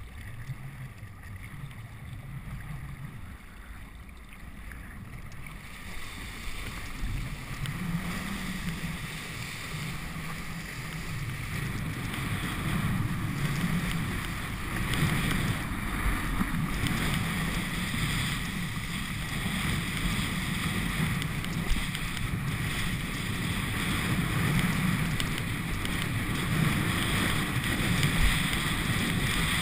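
Wind and water rushing over a helmet-mounted GoPro's microphone as a kiteboard skims across choppy lake water. It is a steady rushing noise with a low rumble that grows louder over the first half.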